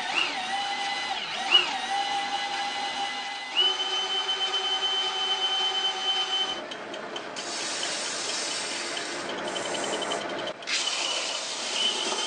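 Cordless drill chucked onto the drive shaft of a homemade 6x48-inch belt sander, whining as it spins the belt. Its pitch rises with a couple of quick trigger pulls, then holds steady. From about seven seconds in, a wood block is sanded on the running belt, a steady rough noise in two stretches with a brief break between them.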